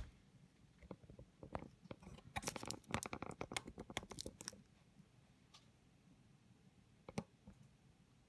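Faint handling noises: a run of light clicks and rustles as a laptop is handled on a desk, then near silence with one sharper click about seven seconds in.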